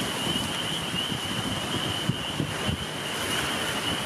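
Strong wind gusting and buffeting the microphone in irregular low thumps over a steady rushing noise, with a steady high-pitched whine running underneath.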